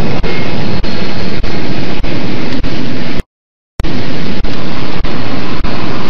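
Loud, overloaded roar of running vegetable-processing machinery, the washer and cutter, with short regular dips about every half second. Just past three seconds in the sound cuts out completely for about half a second.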